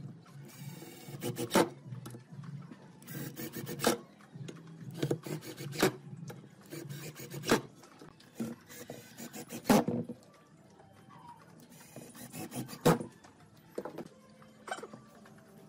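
Pine boards and wooden parts knocking and scraping as they are handled and set down on the bench, with several sharp knocks. There are short runs of a cordless drill driving screws into the boards.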